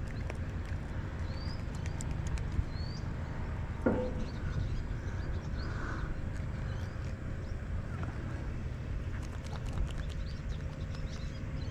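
Steady low outdoor rumble with a bird's short rising chirps a few times in the first three seconds. Scattered small clicks and taps come from handling a small fish and hook, with one sharper tap about four seconds in.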